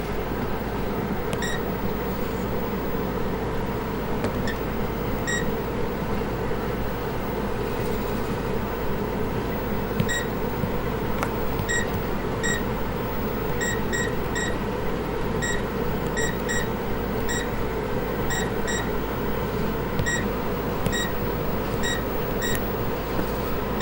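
Bowling computer giving short, single-pitched electronic beeps at irregular intervals, sometimes two or three in quick succession, over a steady background hum.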